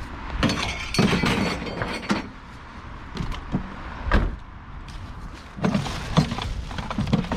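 Hard junk being rummaged and tugged out of a rubbish pile: irregular clattering knocks and clinks of hard objects, with louder bangs about a second in, in the middle, and near the end.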